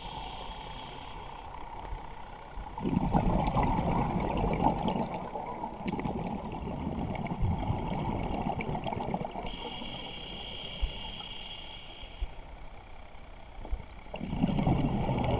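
Scuba diver breathing through a regulator, heard underwater: a hissing inhale with a thin high whine, then a long stream of exhaled bubbles, the cycle repeating so that bubbles come about 3 s in and again near the end.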